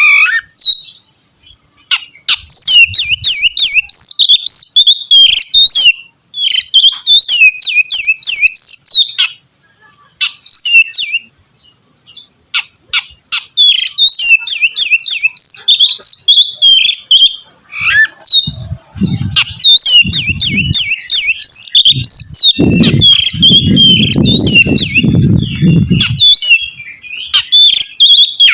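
Oriental magpie-robin (kacer) singing a loud, fast song of high whistled and clicking notes, delivered in long phrases broken by short pauses. Twice in the second half a low rumble sounds under the song.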